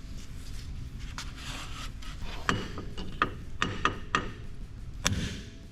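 Metal tools and wheel parts being handled during shop work on a side-by-side wheel hub: a quick run of sharp clicks and knocks a couple of seconds in, then one more knock near the end.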